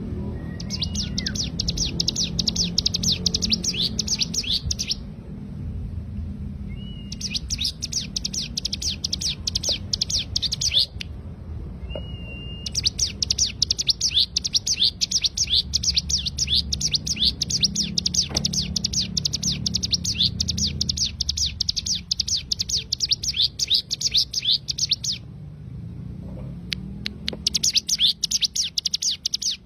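Hill prinia (cigun) singing its rapid-fire 'ngebren' burst song: fast, even trains of sharp high notes in four bouts, the longest about twelve seconds, with short pauses between them and a brief whistled note before some bouts. A low steady hum runs underneath.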